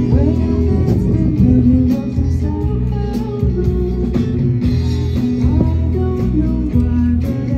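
Live band playing: electric guitar over bass guitar and drums, with a steady beat.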